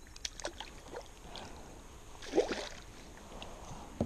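A hooked northern pike splashing and thrashing at the water's surface beside the boat. There are a few short splashes at first, then one much louder splash about two and a half seconds in.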